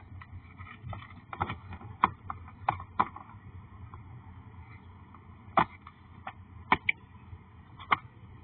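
Scattered sharp plastic clicks and knocks, about a dozen at irregular intervals, as a car's dashboard coin tray holding pennies is handled and fitted under the fuse panel.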